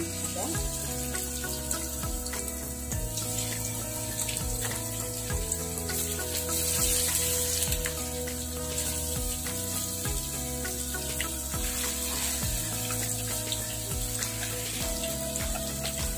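Tandoori-marinated fish pieces sizzling and crackling as they fry in hot oil in a pan, under background music.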